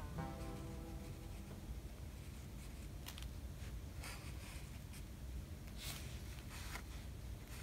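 Faint scratchy strokes of a pen or brush on sketchbook paper, a handful of short strokes a few seconds in, over a low room hum.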